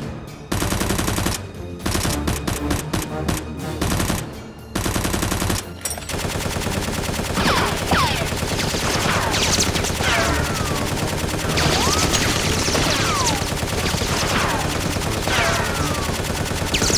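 Automatic gunfire sound effects: rapid machine-gun bursts broken by short gaps, then continuous fire from about six seconds in, with repeated high falling whistles over it.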